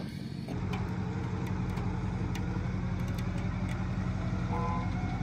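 A vehicle engine idling steadily, with a few faint clicks over it.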